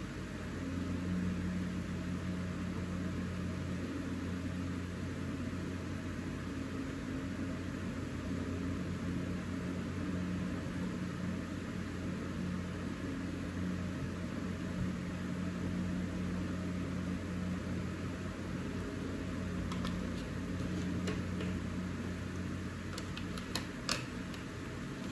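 Steady low machine hum, with a few light clicks near the end as wax crayons are set back into a plastic crayon tray.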